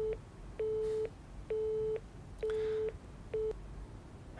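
Telephone busy tone after the other party has hung up: one steady beep repeating about once a second, the last one cut short near the end. It signals that the call is disconnected.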